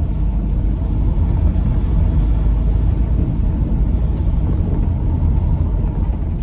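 Steady low rumble of a vehicle's engine and tyres on the road while driving.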